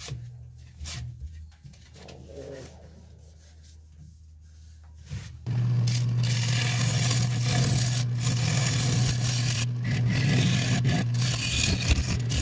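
Wood lathe spinning a Sissoo (Indian rosewood) bowl while a turning tool hollows its inside: a quieter low hum at first, then from about five and a half seconds in a loud, steady scraping cut over the lathe's low drone.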